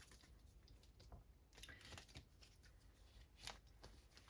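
Faint rustling and light ticks of paper being handled: pages of a small guidebook being leafed through, with one slightly louder rustle near the end.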